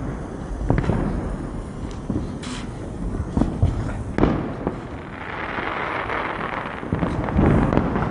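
Supreme Colour Koti Deluxe flower pot (anaar) firework fountain spraying sparks: a steady hiss with scattered crackles and pops, the hiss swelling about five seconds in.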